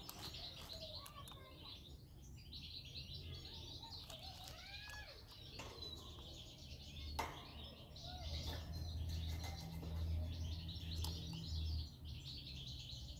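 European goldfinches twittering, a run of quick high chirps with a few sliding notes. A low rumble rises underneath in the second half, with a single sharp click a little before it.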